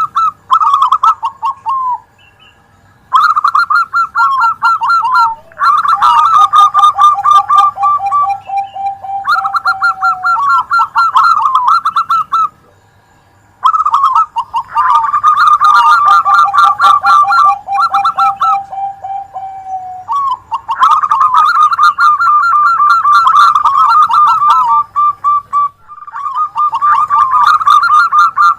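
Several zebra doves (perkutut) calling over one another in loud, repeated phrases of rapid trilled coos, one voice higher and another lower. Short pauses break the calling about two seconds in and again near the middle.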